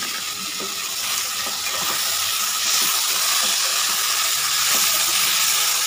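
Chopped potato, brinjal and saag stalks sizzling steadily in hot mustard oil in a pan while being stirred, with faint scrapes of the stirring.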